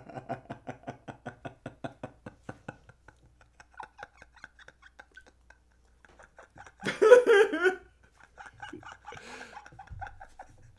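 Two men laughing hard: a fast run of ha-ha pulses that fades out over the first few seconds, a loud burst of laughter about seven seconds in, then quieter giggling and breathy laughs.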